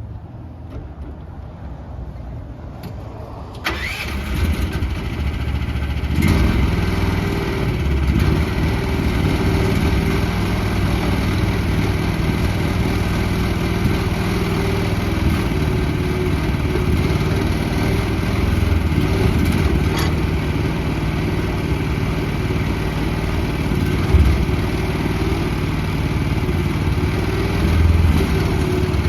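Mini excavator's Briggs & Stratton engine starting: a low rumble at first, then it catches about four seconds in and picks up again near six seconds. After that it runs steadily.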